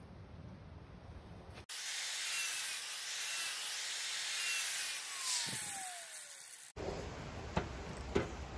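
Soft rubbing of sandpaper on wood, then an angle grinder sanding the carved wood with a steady hiss, its motor whine falling as it spins down. After that, a quieter rubbing with a few light knocks as hands work over the surface.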